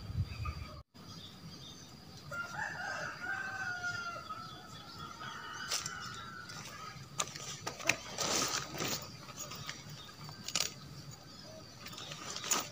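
A rooster crows in the background about two seconds in, a drawn-out call. Later come scattered clicks and knocks of tent poles and fabric being handled, densest around eight seconds in.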